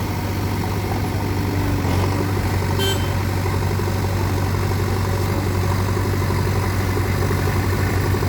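Heavy diesel engine idling steadily with an even, deep drone. There is a brief click about three seconds in.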